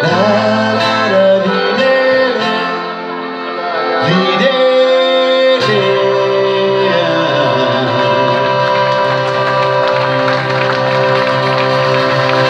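Live folk band: accordion and acoustic guitar playing under a male singer, then a long held chord from about six seconds in that ends the song.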